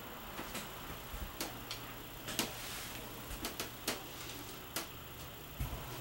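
Scattered light clicks and taps at an irregular pace, about nine in all, over a faint steady low hum.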